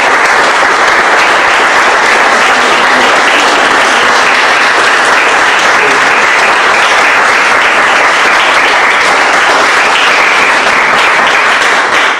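Applause from a roomful of people clapping, loud and steady.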